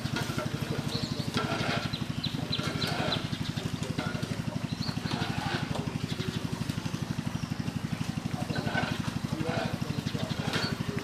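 A small engine running steadily with a rapid, even pulse, and short high chirps scattered over it.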